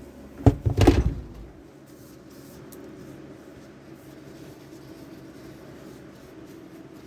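A quick cluster of several knocks and bumps about half a second in, followed by a faint steady low hum.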